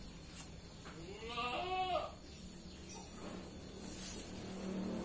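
A goat bleats once about a second and a half in, a short call that rises and then drops in pitch.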